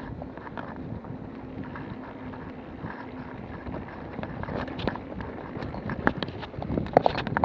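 Mountain bike rolling down a dirt trail: tyres crunching over the ground and the bike's parts rattling, with wind buffeting the microphone. A few sharper clatters come near the end as it runs over rougher ground.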